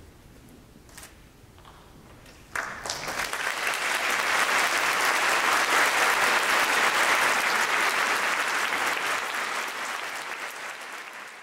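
Audience applauding in a concert hall. After a near-quiet hush with a few faint clicks, the applause breaks out about two and a half seconds in, swells to full strength, and begins to fade near the end.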